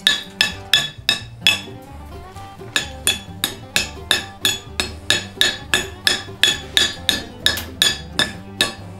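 A blacksmith's hand hammer striking steel on an anvil in quick, rhythmic blows, about three a second, each with a bright metallic ring, knocking off flying scale. There is a brief pause in the blows about two seconds in.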